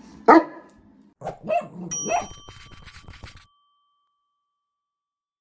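A dog barks once, sharply, just after the start, then barks or yips a few more times about a second later. A bright ringing chime comes in over those barks, and all sound but the chime's fading ring cuts off suddenly.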